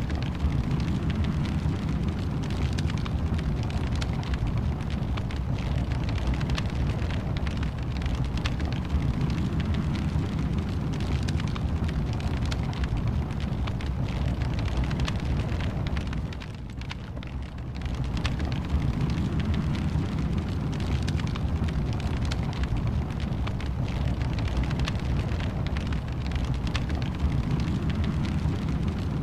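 Wood fire burning in a fireplace: a steady low rush of flames with many small crackles and pops, dropping in level for about a second and a half around the middle.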